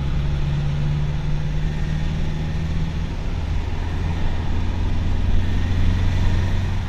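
Mercedes-Benz Vito diesel van driving along, its engine and tyre noise heard from inside the cab: a steady low drone that settles lower in pitch about three seconds in.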